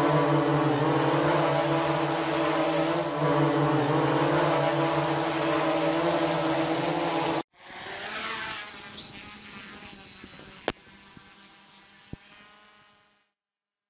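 Quadcopter drone's motors and propellers humming steadily and loudly up close, with a slight waver in pitch. About seven and a half seconds in the sound cuts off and a fainter hum follows, fading away, with two sharp clicks near the end.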